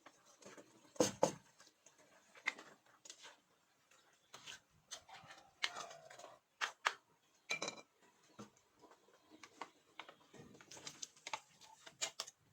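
Irregular clinks and knocks of kitchen utensils against cookware, with no steady rhythm; the loudest knocks come about a second in.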